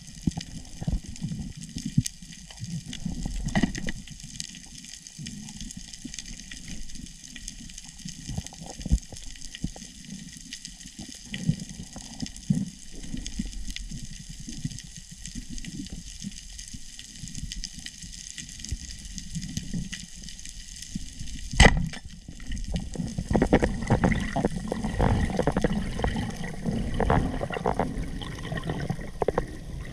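Underwater sound heard from a freediver's microphone: a muffled low water wash with scattered crackling clicks. One sharp loud click comes about two-thirds of the way through, and after it the water noise turns louder and busier as the diver swims up toward the surface.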